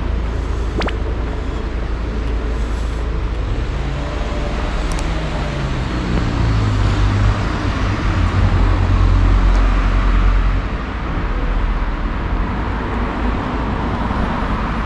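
Street traffic noise, with a motor vehicle driving past close by: its engine hum shifts in pitch as it approaches and is loudest about eight to ten seconds in, then fades.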